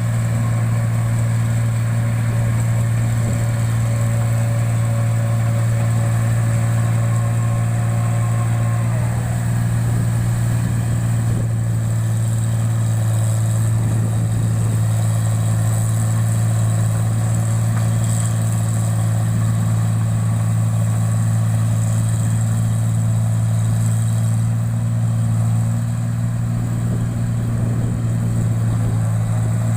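Engine-driven rice machine running at a steady pace with a constant low hum. A few higher tones in the mix fade out about nine seconds in.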